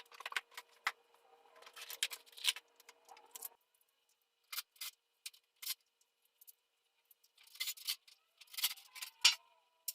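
Irregular clicks and rattles of hard parts being handled, in bursts, with a steady hum that stops about three and a half seconds in.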